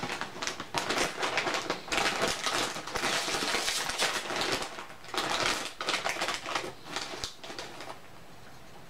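Foil-lined Lay's potato chip bag crinkling and rustling as it is pulled open and a hand reaches in for a chip. The crinkling comes in two long stretches with a short break about five seconds in, and dies down near the end.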